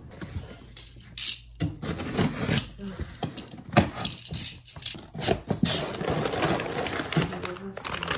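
Cardboard delivery box being opened by hand: packing tape torn off and flaps pulled open, a run of irregular rips, scrapes and knocks, with one sharp knock near the middle.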